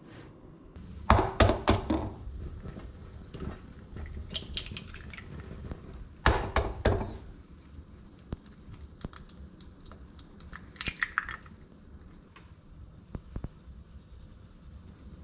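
Kitchen handling sounds: clusters of sharp clinks and knocks from a stainless pot's glass lid on the hob, then an egg tapped and cracked against a glass bowl. The loudest clusters come about a second in and again about six seconds in.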